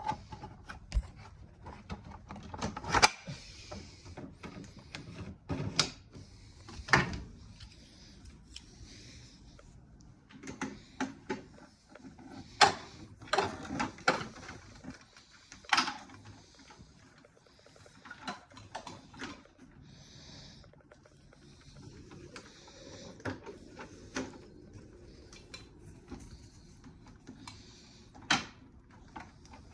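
Irregular clicks, knocks and light rattles of objects being handled, with no motor running.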